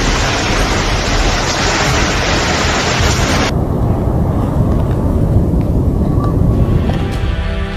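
Tornado wind noise buffeting a phone microphone: a loud, dense rush. About three and a half seconds in it cuts to a duller, lower wind rumble from another clip. Music begins near the end.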